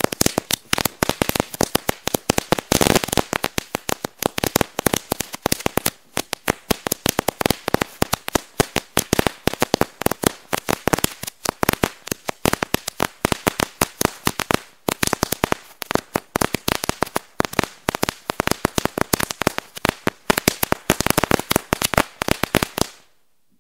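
A string of firecrackers going off: a rapid, irregular run of sharp bangs, several a second, for about 23 seconds before stopping abruptly.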